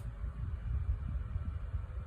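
Small battery camping fan running: its airflow makes a low, unsteady rumble on the microphone, with a faint steady whine from the motor.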